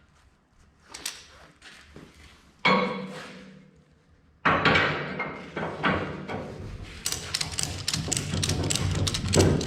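Metal tie-down strap hardware being worked: a flat strap hook or buckle clanks once with a short ringing tail about three seconds in. From about halfway through comes a steady run of rapid clicks and rattles as the strap is tensioned.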